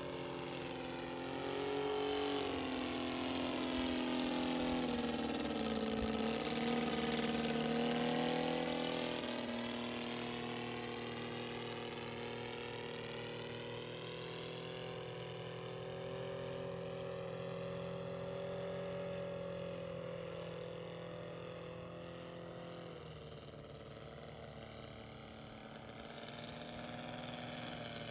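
Engine and propeller of a 1/3-scale Blériot XI radio-controlled model plane in flight: a steady engine note that grows loudest a few seconds in as the plane passes, then fades as it flies away and rises again a little near the end.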